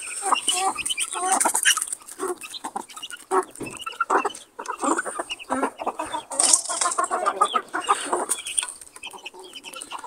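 A flock of chickens clucking as they feed on grain, with many short calls overlapping one another.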